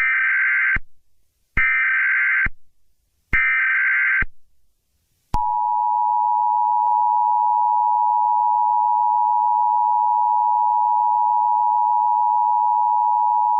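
Emergency Alert System signal: three short bursts of the warbling SAME digital header tones, about a second apart. About five seconds in, the steady two-tone attention signal begins, two high tones sounding together without a break.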